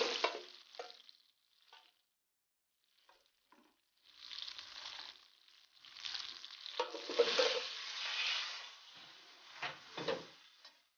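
Beef sirloin with fresh rosemary and thyme sizzling in hot oil in a frying pan. Faint at first, the sizzle comes in about four seconds in and swells, with a few sharp crackles near the end.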